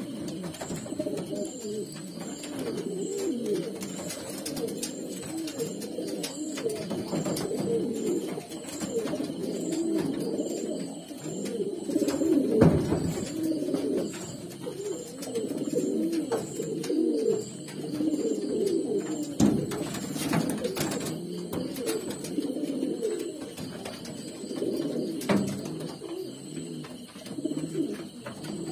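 A group of caged king pigeons cooing continuously, many low warbling coos overlapping one another.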